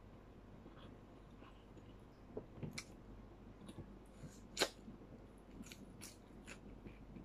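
Faint eating noises from a person eating rice and fish by hand: chewing and a few short, sharp mouth clicks and smacks, the loudest a little past halfway.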